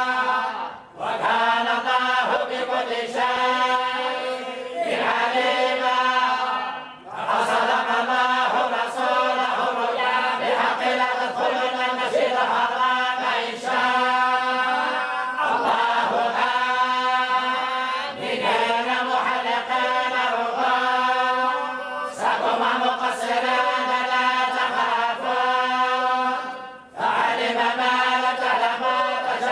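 Group of voices reciting the Quran together in the Moroccan collective style, a melodic chant in unison, with a few short pauses for breath between phrases.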